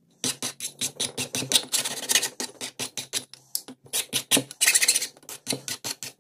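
Hand file rasping back and forth over the cut end of a metal ski-pole tube in quick, even strokes, about four a second, smoothing and deburring the cut edge.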